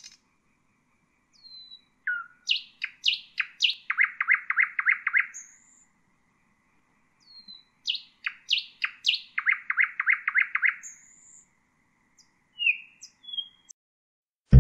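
Nightingale singing: two similar phrases, each opening with a few separate whistled notes and then a fast run of about six repeated notes a second, followed by a few short single notes near the end.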